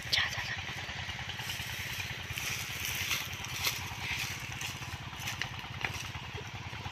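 A motor running steadily in the background as a low, even hum, with light rustling and crackling of dry bamboo leaves as someone moves through them.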